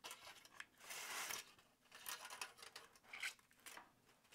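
Faint, scattered rustling and scraping of crumpled aluminum foil and a foam block shifting under the hands while hot glue is run along the foam. The longest rustle comes about a second in.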